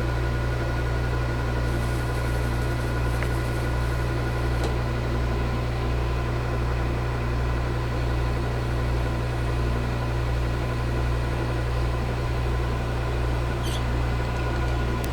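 Metal lathe running steadily during a light facing cut on aluminium: a constant low hum with a steady whine over it, and a few faint ticks.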